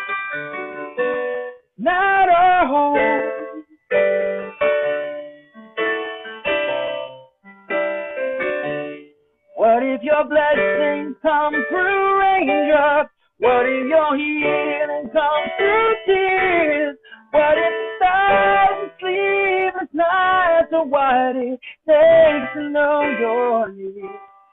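A man singing a slow worship ballad, accompanying himself on a digital piano, heard over a video call with the sound cut off above the high treble. The sound drops out completely for a moment several times.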